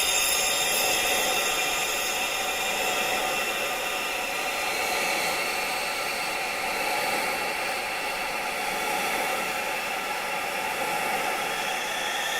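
Steady rushing wind, an even noise without a beat. High ringing tones of wind chimes linger faintly and fade out over the first few seconds.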